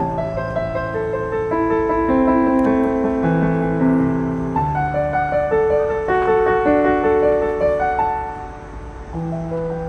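Background music: a slow piano piece of held notes and chords, dipping briefly in loudness near the end.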